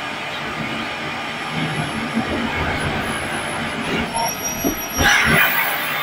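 Miele canister vacuum cleaner running steadily with a faint high whine. There are a few knocks about four to five seconds in, then a louder hiss near the end.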